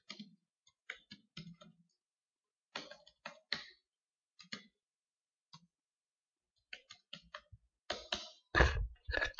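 Computer keyboard keys clicking in short, scattered bursts of typing, with a few louder, heavier knocks near the end.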